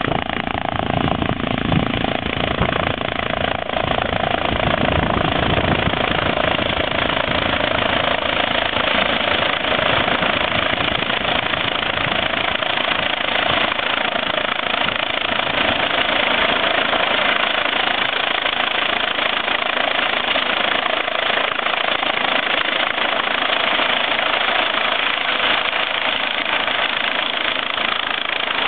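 Air-ambulance helicopter approaching and descending to land, its rotor and turbine running loud and steady, growing a little stronger from about six seconds in as it comes closer.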